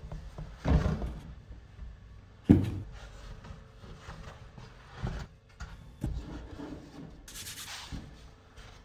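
Hands handling bread dough and pressing it into a banneton: rubbing and scuffing of hands on dough and basket, with a few dull thumps, the loudest about two and a half seconds in.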